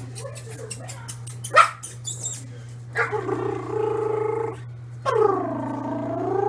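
A dog making two long, drawn-out pitched vocal sounds, each about one and a half to two seconds, the second dipping and then rising in pitch. Before them comes a run of quick clicks and taps.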